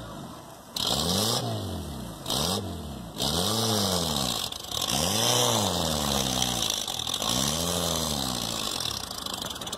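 Small car engine revved hard again and again, its pitch rising and falling about once a second, with water churning around the wheels as the car struggles to climb out of deep muddy water.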